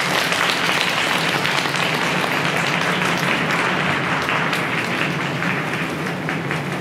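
Audience applauding in a large hall, a dense patter of clapping that eases off slightly over the last few seconds.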